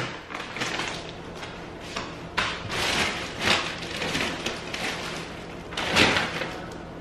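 Plastic mailer bags and a paper shopping bag rustling and crinkling as they are handled, in several bursts. The loudest burst comes about six seconds in.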